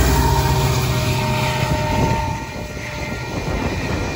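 A Union Pacific diesel locomotive at the rear of a freight train running past at speed, its engine rumble loud at first and then dropping away about two seconds in as it clears the crossing, leaving the rolling noise of the departing train.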